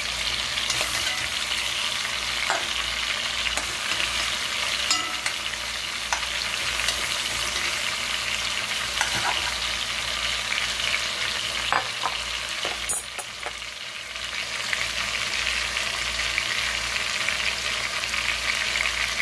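Chicken pieces and sliced onions sizzling steadily in hot fat in a metal pot as they brown and the onions cook down toward caramelizing. A stirring utensil scrapes and clicks against the pot now and then.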